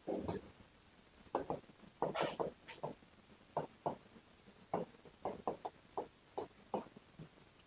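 Writing on a board: a run of short, irregular taps and scrapes, about a dozen strokes, as the question is written out.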